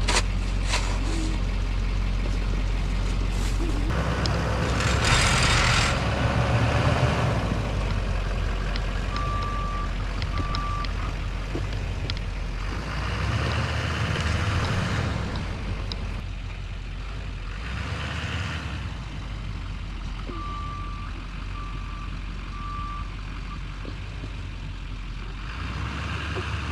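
Truck engine running steadily, with several surges of louder noise lasting a second or two as the truck strains to pull the unhooked trailer out of a ditch with ratchet straps. Short beeps come twice, two or three at a time.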